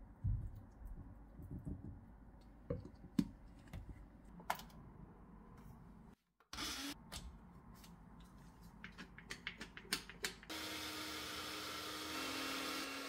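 Light clicks and taps as a plastic spoon scrapes yogurt from its tub onto a glass blender jar and the jar is set in place, then a Tefal countertop blender switches on about ten seconds in and runs steadily with a humming motor, blending yogurt and berries into a smoothie. The motor's hum drops a little in pitch near the end.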